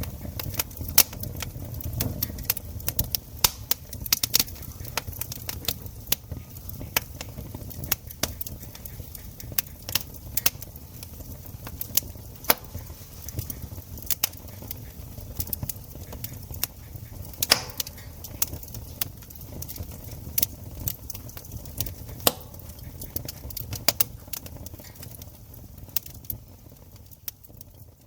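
Wood campfire crackling and popping, with sharp irregular snaps at uneven intervals over a low steady rumble.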